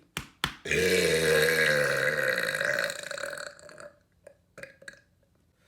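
A man's long, loud burp lasting about two and a half seconds, its pitch sinking slightly as it goes on and then trailing off. Two short clicks come just before it.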